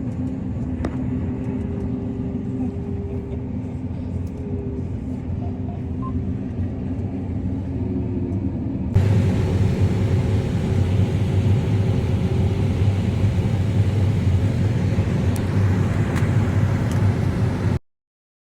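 Combine harvester running steadily at work in the corn harvest. About halfway through there is an abrupt change to a louder, rougher machine drone, and the sound cuts off suddenly just before the end.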